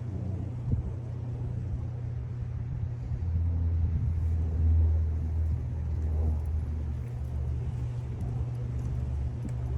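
Low, steady rumble of wind buffeting the microphone at the seashore, with waves washing on the shore beneath it; it swells for a few seconds around the middle.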